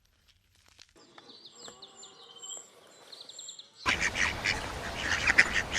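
Faint bird chirps, then about four seconds in, ducks quacking loudly in a dense run of overlapping calls.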